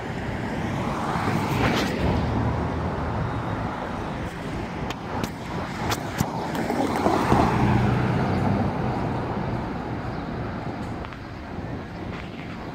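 City street traffic: cars driving through an intersection, a steady rumble of tyres and engine hum that swells as vehicles pass, about two seconds in and again around seven seconds, then eases.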